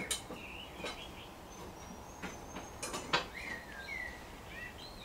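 A few light clicks and taps of small mower linkage parts being handled and fitted, with birds chirping in the background.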